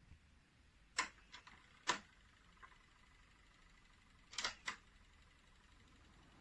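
Several sharp clicks, some in close pairs: two loud ones about a second in, a faint one after, and another close pair just past the middle, over a faint steady hiss.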